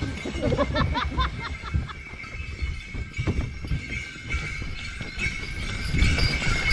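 Sleigh bells on a two-horse team jingling steadily while the horses pull the sleigh through snow, over the uneven thud of their hooves; louder near the end.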